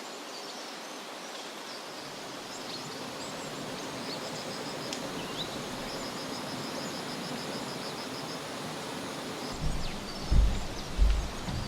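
Outdoor forest ambience: a steady background hiss with faint bird calls, including a rapid trill heard twice in the middle. A few low thumps come near the end.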